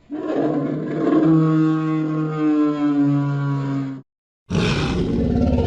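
Film sound effect of a Tyrannosaurus rex roar: a long, pitched roar of about four seconds that cuts off sharply. After a short gap, a second, rougher and deeper roar begins.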